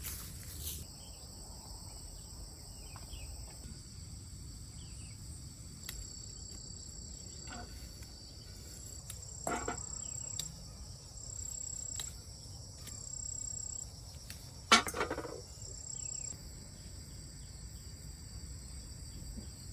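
Insects trilling steadily at a high pitch, some of the trills pulsing on and off. A few short knocks or rustles break in, the loudest about fifteen seconds in.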